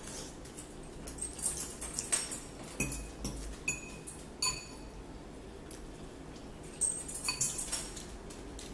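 A fork clinking and scraping against a ceramic bowl of noodles: a string of light clinks with short rings in the first few seconds, and another cluster about seven seconds in.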